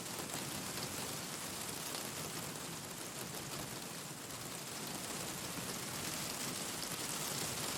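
Steady rain falling in an even hiss, with small crackles from a wood fire mixed in.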